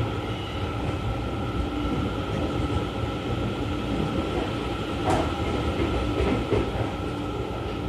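Seibu 30000 series electric commuter train running between stations, heard from inside the car: a steady rumble of wheels on rail with a steady whine. There is a single sharp click about five seconds in.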